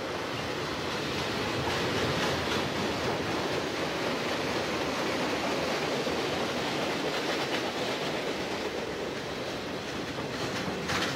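Freight cars of a passing mixed freight train rolling by at close range: steady noise of steel wheels on the rails, with occasional faint wheel clicks.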